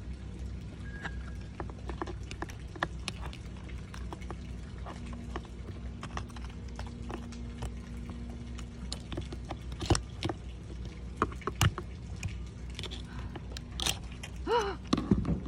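Metal hand tools clicking and scraping against the top of a Lewmar sailboat winch as its retaining clip is pried at, in scattered sharp clicks that come more often in the second half, over a steady low background hum. A brief sliding tone sounds near the end.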